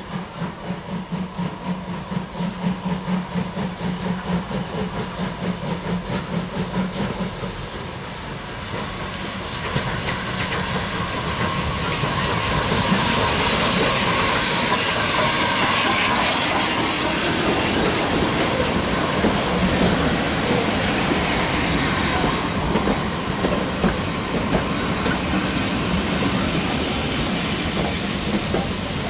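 A Southern Railway S100 class USA tank steam locomotive working a passenger train toward and past the listener: a regular exhaust beat at about two to three beats a second as it approaches, a loud steam hiss as the locomotive goes by about halfway through, then the coaches rolling past with wheels clicking over the rail joints.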